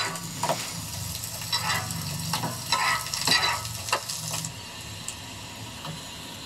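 Parottas frying on a flat griddle: a steady oily sizzle, with scattered scrapes and taps of a spatula pressing and turning the bread on the griddle.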